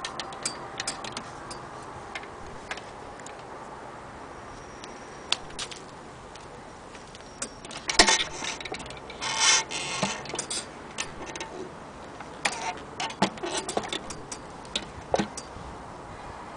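Irregular clicks and knocks from hands handling a Frister & Rossmann 503 sewing machine's extension table and casing, with the sharpest knock about eight seconds in and a short rustle just after. The machine's motor is not running.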